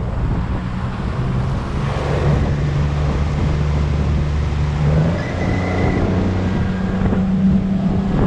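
40-horsepower outboard motor running at speed, driving the boat over the water, trimmed up for shallow water, with wind buffeting the microphone and the wake rushing past. The engine note shifts up slightly about five seconds in.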